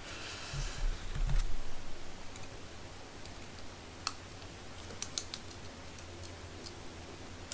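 Small RC crawler suspension parts being handled and fastened by hand: a brief rustle and soft knocks in the first second or so, then scattered light, sharp clicks.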